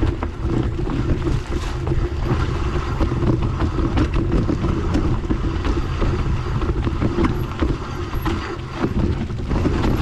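Wind buffeting the camera microphone over the rumble and rattling of a mountain bike riding a rough trail, with many small knocks throughout.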